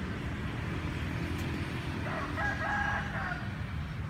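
A rooster crowing once, about two seconds in, for just over a second, over a steady low rumble.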